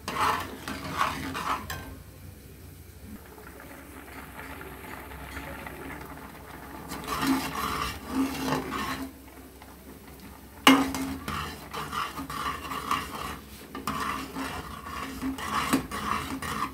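Flat metal spatula stirring and scraping a thick, grainy kalakand mixture of curdled milk and sugar in a metal pot, in repeated strokes as it cooks down on high flame. The stirring goes quieter for a few seconds after about two seconds in, then resumes, with a sharp clank of metal on the pot about ten seconds in.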